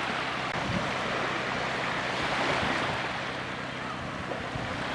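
Steady rush of sea surf and wind buffeting the microphone, with a low steady hum underneath.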